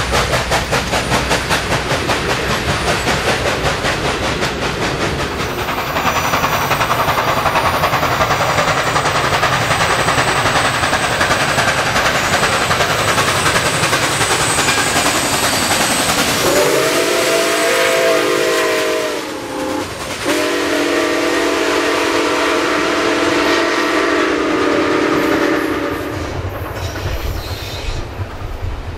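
Nickel Plate Road 765, a 2-8-4 Berkshire steam locomotive, working with its passenger train. The cars clatter past with a fast rhythm at first, then the engine's chime whistle sounds two long blasts a little past halfway: the first about two and a half seconds long, the second about five and a half.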